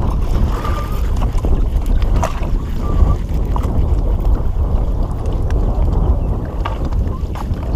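Steady low rumble of wind buffeting the microphone on an open boat, with a few light clicks and taps scattered through it.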